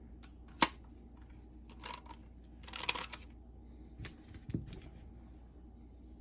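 Small clicks and handling noises from a Sony WM-FX28 Walkman cassette player being worked on by hand. There is one sharp click about half a second in, a brief scraping rustle around the middle, and a few softer clicks later.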